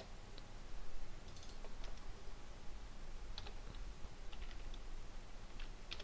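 Scattered single clicks of a computer mouse and keyboard keys, about ten spread unevenly, over a steady low hum.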